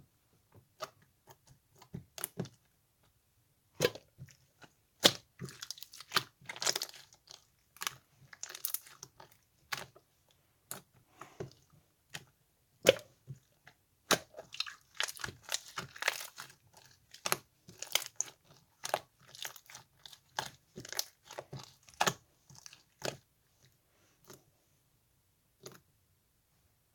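Slime being played with by hand, making irregular sticky clicks and pops, with stretches of denser crackling and only a few pops in the last few seconds.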